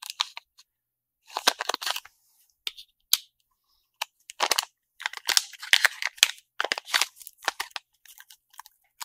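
Plastic packaging bags crinkling and rustling as they are handled and opened, in irregular bursts of crackle with sharp clicks.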